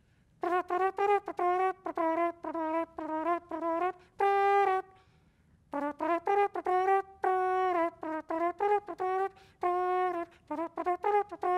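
Solo trumpet playing a fast bebop line of short, separate notes. Two longer held notes stand out, and there is a brief break a little after the middle.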